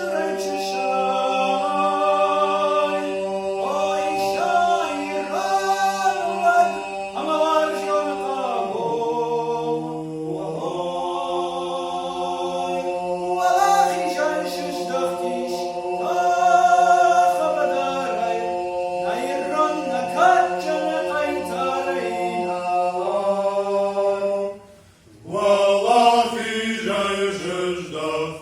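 Male vocal ensemble singing a traditional Ossetian heroic folk song, a lead voice carrying the melody over a held choral drone. The drone drops to a lower note about nine seconds in. The voices break off briefly near the end and then come back in.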